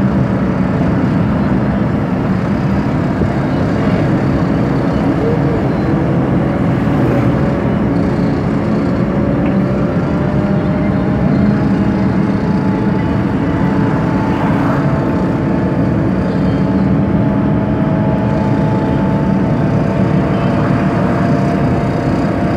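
Steady engine and tyre drone of a moving car, heard from inside the cabin, with faint engine tones slowly rising in pitch from about ten seconds in.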